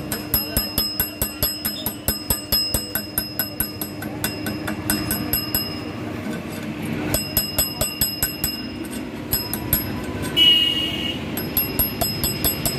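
Rapid hammer blows on steel, about three a second, each ringing metallically, broken by a couple of short pauses. A brief high tone sounds once, near the end.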